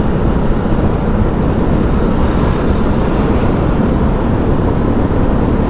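Bajaj Pulsar motorcycle riding at highway speed: a steady rush of wind on the camera's microphone with engine and tyre noise underneath.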